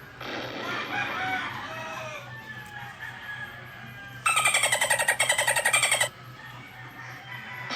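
Bird-call sound effect: a few short chirps and calls, then a much louder, raspy, pulsing call about four seconds in that lasts nearly two seconds and cuts off abruptly.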